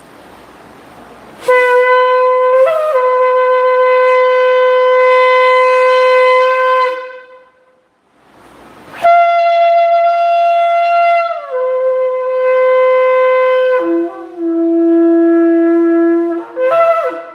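A shofar blown in two long blasts with a breath between. The first is a steady held note that cracks briefly near its start. The second starts higher and steps down twice to a lower note, ending with a short toot.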